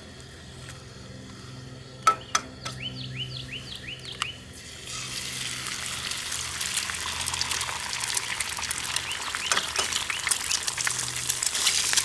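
Eggs frying in bacon grease in a skillet on a camp stove. A sharp crack about two seconds in as an egg is broken, then a crackling sizzle that starts about five seconds in and grows louder near the end as a second egg goes in. A quick run of short chirps comes just before the sizzle starts.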